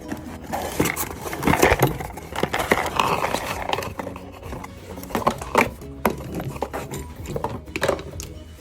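Irregular knocks, clicks and scraping as parts of a washing machine are handled, with a rougher rustling stretch about one to three seconds in.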